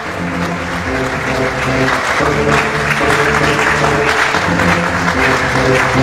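Audience applause over music with long held notes; the clapping swells over the first couple of seconds and then keeps up steadily.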